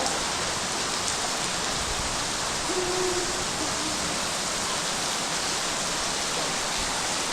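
Steady hiss of rain falling. About three seconds in there is a short, low hooting tone.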